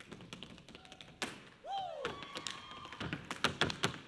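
Metal taps on tap shoes striking a wooden stage floor in quick, irregular rhythmic patterns, with no music under them.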